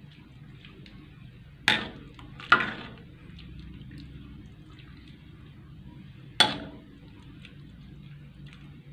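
A metal ladle stirring and scooping clear soup in a metal pot, clinking sharply against the pot three times, with faint sloshing of the broth.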